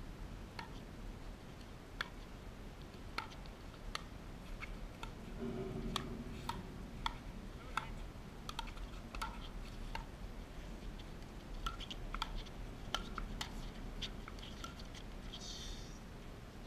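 Pickleball rally: paddles striking the hollow plastic ball and the ball bouncing on the hard court, a string of sharp pocks at uneven intervals, about one or two a second.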